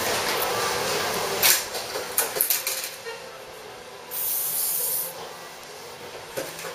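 Sharp clicks and rustles of hands and pins working in hair. About four seconds in comes roughly a second of aerosol hairspray hiss.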